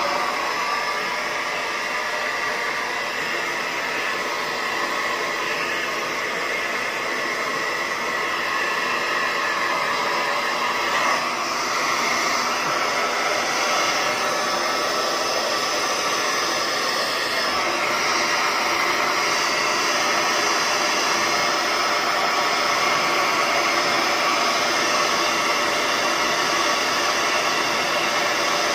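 Handheld hair dryer running steadily on wet hair, a continuous blowing noise with a faint motor whine; the tone shifts a little twice as it is moved about.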